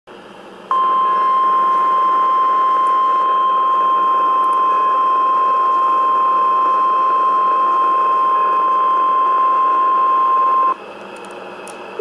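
NOAA Weather Radio warning alarm tone: one steady high tone (the 1050 Hz alert tone) held for about ten seconds and then cut off, played through a weather radio's speaker with receiver hiss behind it. It signals that a warning message is about to be read.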